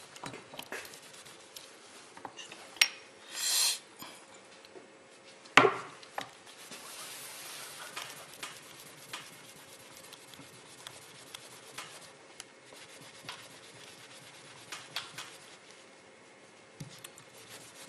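Cloth or paper rubbed by hand over a small piece of cured metal repair putty on a tabletop, a faint scratchy rubbing with scattered small clicks, a short scrape a few seconds in, and one sharp knock about five and a half seconds in.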